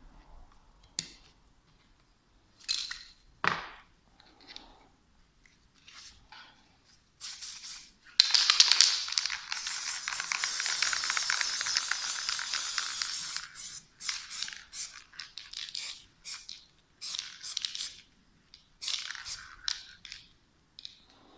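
Aerosol spray paint cans hissing: one long spray of about five seconds in the middle, then a string of short sprays. A single knock sounds a few seconds in.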